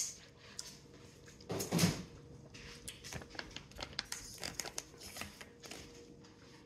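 Shiny plastic sauce pouch crinkling as it is picked up and handled, with many small crackles and a louder rustle near two seconds in.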